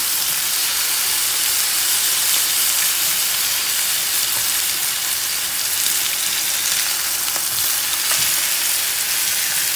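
Lobster tails, tiger shrimp and salmon fillet frying in olive oil in a skillet: a steady sizzle.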